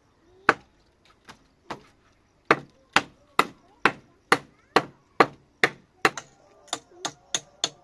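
A tool striking wood again and again: a few spaced-out blows, then a steady run of sharp strikes at about two a second, around seventeen in all.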